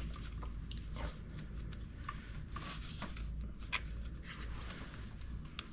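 Irregular light metallic clicks and clinks of hand tools working on a motorcycle spark plug, with one sharper click near the middle, over a steady low hum.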